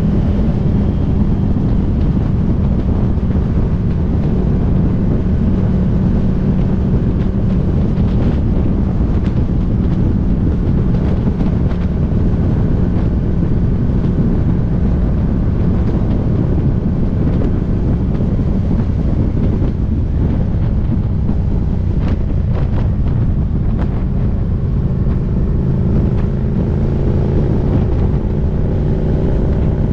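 Motorcycle engine running at a steady cruise, with wind buffeting the microphone; the engine note climbs near the end.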